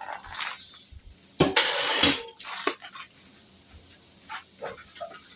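Frying pan sizzling steadily as rice and meat cook down to drive off moisture, with spatula scrapes and knocks against the pan, the loudest a rough scrape about a second and a half in.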